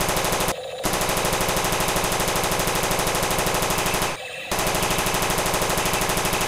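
Toy M16 rifle's electronic machine-gun sound effect, a rapid, even string of shots through its small speaker, broken by two short pauses: one about half a second in and one about four seconds in.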